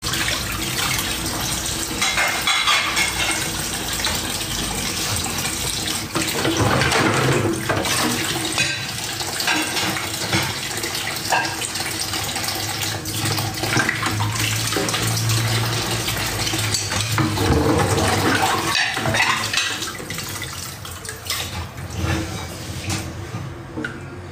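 Water running from a kitchen tap into a sink, with dishes and cutlery clattering now and then. The running water eases off near the end.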